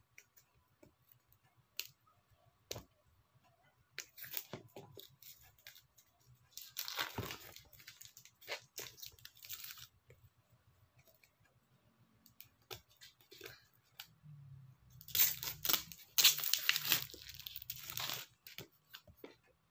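Cardboard smartphone retail box being opened by hand: its seal is peeled and torn, with paper and cardboard rustling and scraping. A few faint clicks come first, then bursts of tearing and rustling, the longest and loudest a few seconds before the end.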